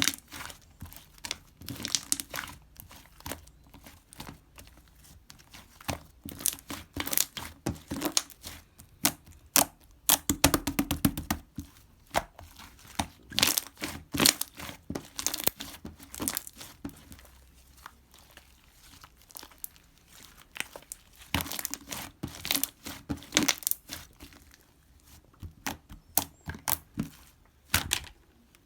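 Purple slime being squished, folded and stretched by hand, making irregular clusters of sticky clicks and small pops.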